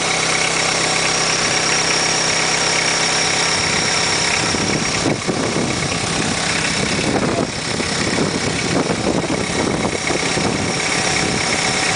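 Van engine idling steadily, with a thin steady whine running above it.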